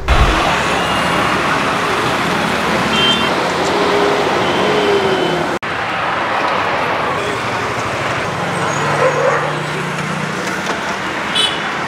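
Steady roadside traffic noise from vehicles on the road beside the food cart, with a brief break about halfway through.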